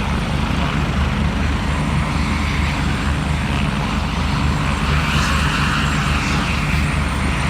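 Eurocopter EC145 helicopter running close by: its twin turboshaft engines and main rotor make a steady, rapid low thudding under a hiss, with a thin steady high tone.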